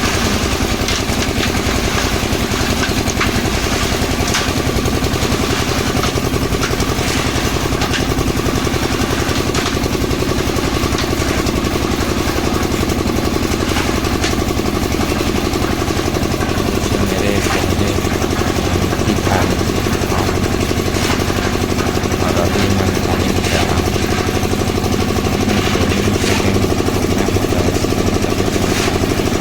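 An engine running steadily at a constant speed, with occasional faint knocks and clicks over it.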